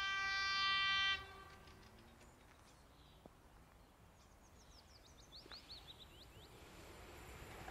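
Horn of a PESA Elf 27WEb electric multiple unit giving the Rp1 'attention' warning: one long steady blast that cuts off about a second in. A quick run of high chirps follows, and near the end the low rumble of the approaching train rises.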